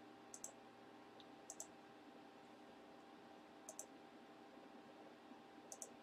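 Computer mouse double-clicking four times, a second or two apart, over a faint steady electrical hum.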